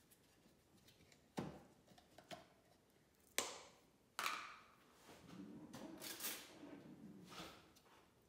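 Faint kitchen handling sounds: three sharp clicks or knocks as containers and utensils are picked up and set down, then a softer stretch of shuffling and handling.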